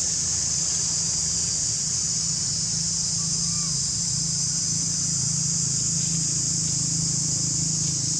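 Steady high-pitched insect chorus with a steady low hum beneath it, and a few faint rustles near the end.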